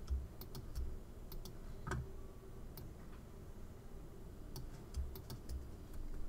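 Scattered light clicks of a computer mouse and keyboard while drawing with a graphics program's pen tool, with a few soft low knocks and a faint steady hum underneath.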